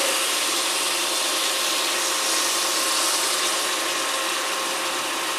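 Tomato-and-onion masala with peas sizzling steadily in an aluminium kadai on an induction cooktop, with lemon juice just squeezed in, and a faint steady hum under it.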